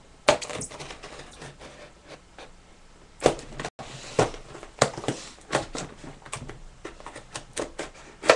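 Hard plastic packaging clicking, crackling and snapping as it is cut around its edge with a knife and pried open, in irregular sharp clicks with a louder snap about three seconds in.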